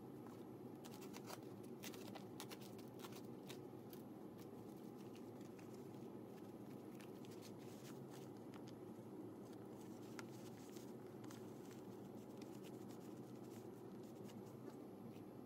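Faint crinkling and crackling of the paper jacket on fiberglass pipe insulation as gloved hands wrap and press it around a copper pipe, densest in the first few seconds, over a steady low hum.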